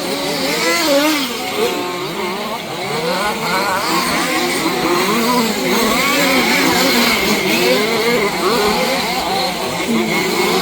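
Several 1/5-scale petrol RC off-road cars racing, their small two-stroke engines revving up and down over one another.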